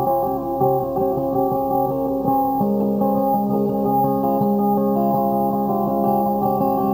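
Instrumental guitar music: plucked notes ringing over held chords, with a change of chord about two and a half seconds in.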